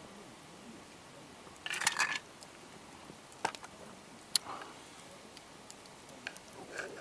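A short clatter about two seconds in, then a few single sharp clicks, over a quiet background.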